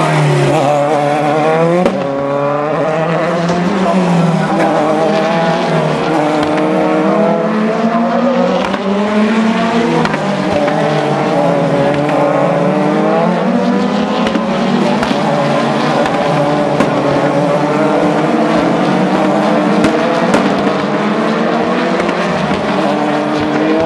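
Open-wheel single-seater racing cars at speed, several engines heard at once, their pitch rising and dropping repeatedly as the cars accelerate and back off through the corners.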